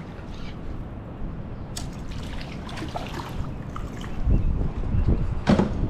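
Water splashing as a hooked tautog thrashes at the surface and is lifted out on the line, over a steady rumble of wind on the microphone. Several low thumps and a sharp knock come near the end.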